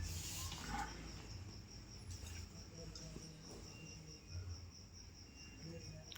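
Faint high-pitched pulsing trill, evenly repeated and steady, over a low hum, with a few faint clicks.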